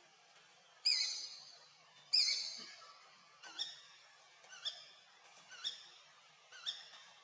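Young macaque crying: two loud, high-pitched cries falling in pitch, about a second apart, then four shorter, fainter cries at about one a second.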